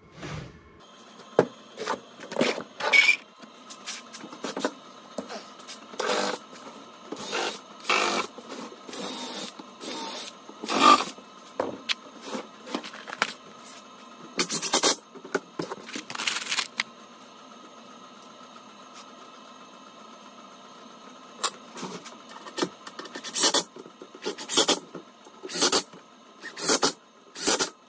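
Power drill pre-drilling and driving wood screws into MDF in a string of short bursts, with a pause of a few seconds past the middle.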